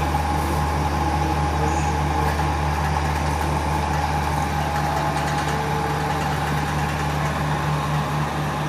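Steady low drone of a passenger train's diesel engine running as the train rolls slowly past, with a constant hum and no marked wheel clatter.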